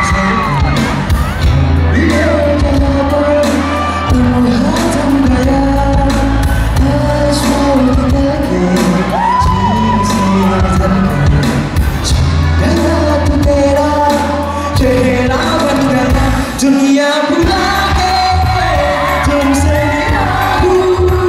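A male singer sings live through a PA over a full band, with a steady bass line and drums, heard from the audience in a large hall.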